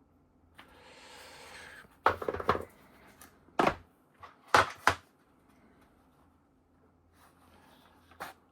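Wooden watchmaker's parts boxes being handled: a short scraping slide, then a run of sharp wooden knocks and clatters, with single knocks a few seconds later.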